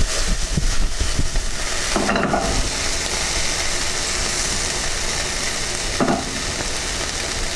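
A chicken and vegetable stir fry sizzling steadily in a deep nonstick pan while it is stirred with a wooden spoon.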